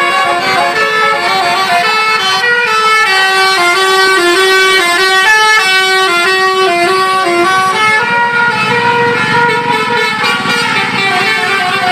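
Telolet horn of a Basuri bus, a set of tuned air horns playing a quick melody of stepped notes that rise and fall.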